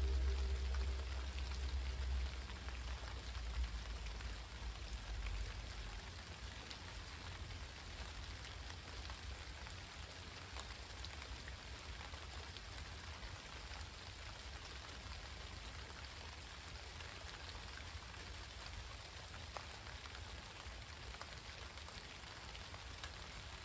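Steady rain falling, with individual drops ticking close by. A low rumble from the train's GP60 diesel locomotives fades away over the first six seconds or so.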